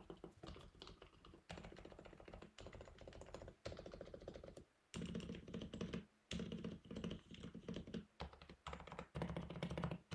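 Fast typing on an HHKB Pro 2 keyboard with Topre switches, lubed and fitted with silencing rings: a quick, muted, deep run of keystrokes, broken by short pauses every second or so. Two of the board's standoffs are broken, which may make the sound a little uneven.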